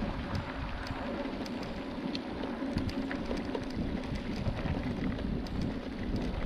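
Wind buffeting the microphone over the rolling and rattling of a mountain bike on a rough trail, with many small scattered clicks.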